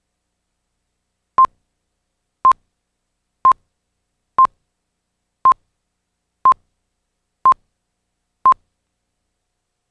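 Countdown leader beeps: eight short, identical high beeps, one a second, timed to an on-screen number countdown to the start of the programme.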